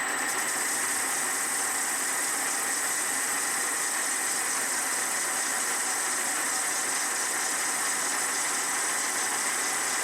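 Metal lathe running steadily with a high whine, a 2 mm parting tool plunge-cutting 10 mm brass bar down toward 5 mm diameter.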